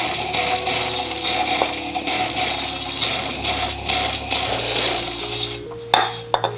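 Small metal gearbox gears clinking and rattling together in a small container as they are washed in brake cleaner to strip off old grease, with a few sharp clicks near the end.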